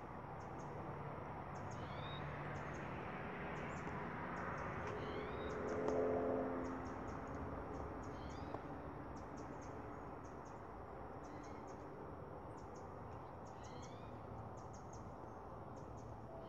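Small birds chirping in the background, with short high twitters throughout and rising call notes every few seconds, over a steady background hum. About six seconds in, a louder low sound made of several tones swells and fades within about a second.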